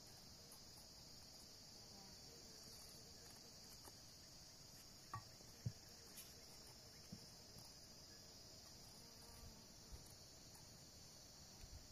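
Faint, steady chorus of crickets chirping. A few soft taps about five to six seconds in.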